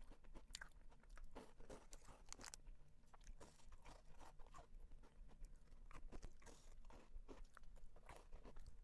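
Close-miked biting and chewing of a thin piece of chocolate: an irregular run of small crisp snaps and wet mouth clicks.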